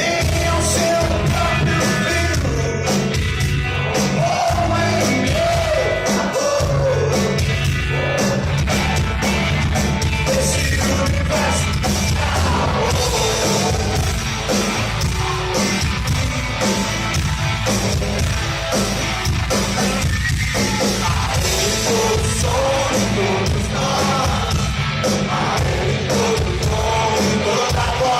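Live Christian rock band playing a worship song, with a singer over a full band and a driving beat.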